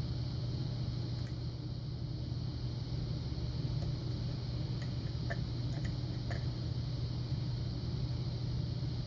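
A steady low hum, with a handful of faint, light clicks from a lock pick probing the pin stack of a Yale Punisher padlock, mostly between about four and six and a half seconds in.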